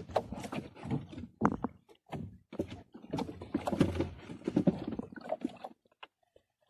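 Irregular knocking, bumping and rubbing against a small fishing boat's hull close by, as a person shifts on the seat and handles gear at the gunwale. It stops abruptly about a second before the end.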